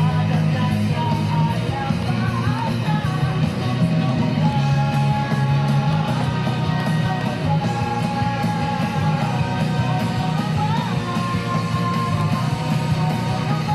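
Rock background music with a singing voice and guitar, playing steadily.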